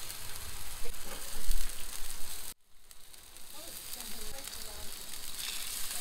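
Seasoned fish fillets sizzling in oil on a hot flat-top griddle. The sizzle cuts out abruptly about two and a half seconds in, then comes back.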